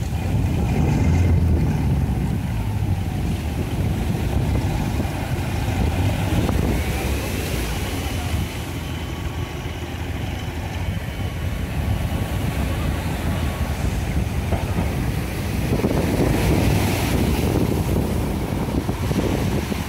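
An engine running steadily under surf washing up the sand, with wind buffeting the microphone.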